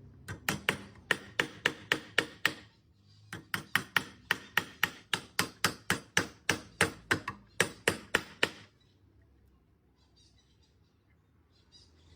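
Rapid, even hammer blows, about four a second, on rivets that fasten two boards together. The blows come in two runs with a short pause between and stop about two-thirds of the way through, leaving only a few faint ticks.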